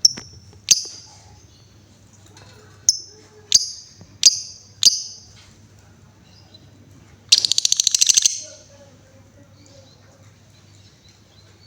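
Female lovebird calling: six short, sharp high-pitched chips spread over the first five seconds, then a fast rattling trill lasting about a second, the 'ngetik' chips leading into 'ngekek' chatter.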